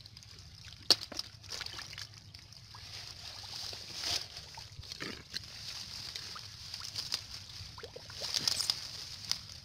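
Hands sloshing and splashing in muddy water: in a basin of freshly caught fish about four seconds in, then among water hyacinth in the mud near the end. Scattered sharp clicks and snaps run through it, one louder about a second in.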